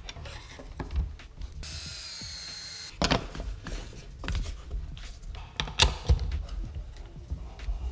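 Hands fitting and setting a bearing-guided chamfer bit in a router table: clinks and knocks of a wrench on the collet, the metal insert ring and a wooden strip set on the table top, with a loud knock about 3 s in and another about 6 s in. The router motor is not running.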